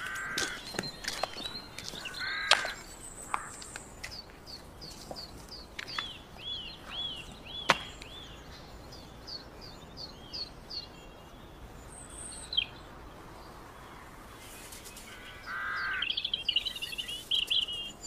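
Woodland birds calling. There are harsh calls near the start, about 2.5 s in and again about 15 s in. From about 4 to 11 s a songbird repeats a short high note two or three times a second, and a quick trill comes near the end. A few sharp clicks are heard among the calls.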